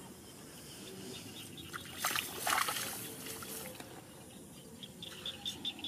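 Shallow rice-paddy water splashing and sloshing as a baby macaque wades through it, with a louder burst of splashing about two seconds in. Near the end comes a quick run of short high chirps, about five a second.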